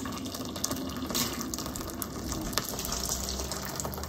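Hot water pouring in a steady stream into the inner pot of an electric pressure cooker that holds soaked beans.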